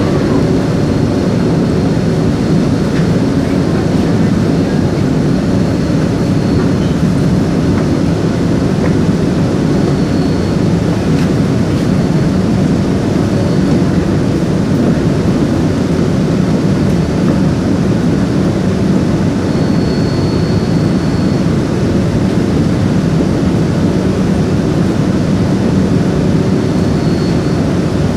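Steady running noise of a Downtown Line MRT train in a tunnel, heard from inside the carriage: a loud, even low rumble of wheels and motors, with a faint high whine coming and going a few times.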